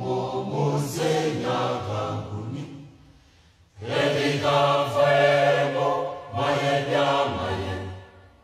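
Choral singing in two sustained phrases, with a short break about three seconds in.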